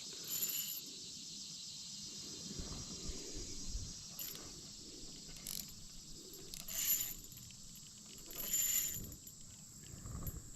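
Steady insect chorus, with three short noisy bursts: one near the start, one about seven seconds in, and one shortly after that.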